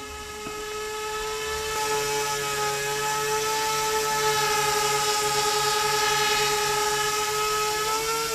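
Electric RC bi-rotor aircraft (Z-2 bi-copter) flying close by: a steady whine from its two motors and propellers over a rushing hiss. It grows louder over the first few seconds as it comes near, then eases slightly, with a small rise in pitch near the end.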